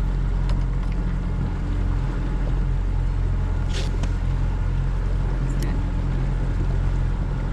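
Outboard motor on a Carolina Skiff running steadily with a constant low hum. There is a brief high hiss about four seconds in.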